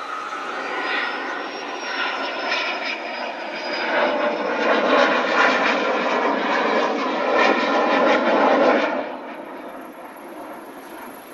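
Saab JAS 39 Gripen fighter jet flying past, its single turbofan engine giving a loud roar with a high whine that slides up and back down in the first few seconds. The noise builds to its loudest over the middle, then falls away sharply about nine seconds in.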